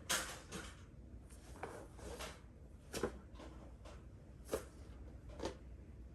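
Rustling of clothing and soft irregular knocks of a person performing prostration bows, over a steady low room hum.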